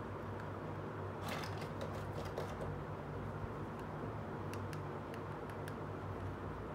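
Small hard-plastic miniature toys handled in the fingers and set down: light clicks and taps, bunched about a second in and again around five seconds in, over a steady low hum.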